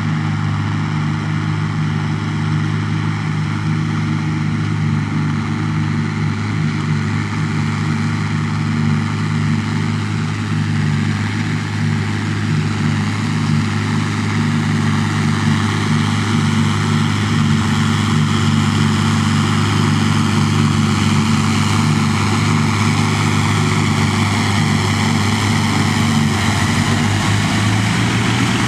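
Farm tractor diesel engine running steadily at working revs, with a dense mechanical whirr above it.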